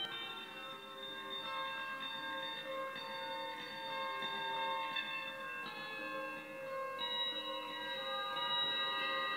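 Improvised experimental music of layered, sustained ringing tones that change pitch every second or so, with no beat.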